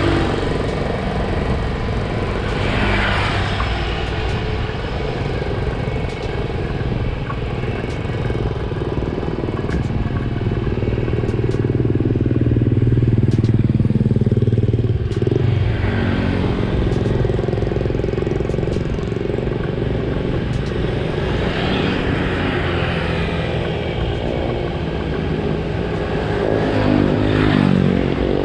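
Motorcycle engine running at road speed, heard along with wind and tyre noise. The engine note swells and falls with the throttle and rises near the end.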